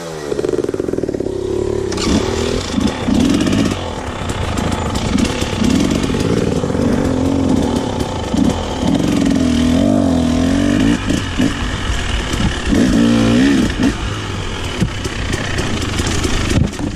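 Dirt bike engine running under load while being ridden, its revs rising and falling over and over with the throttle.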